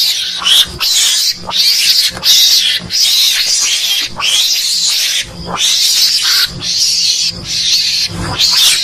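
Mongoose (garangan) calls from a hunting lure recording: a steady run of harsh, hissing chatters, about one and a half a second.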